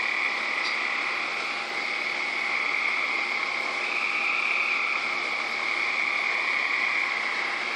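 A chorus of frogs calling without a break, a steady high-pitched trilling drone.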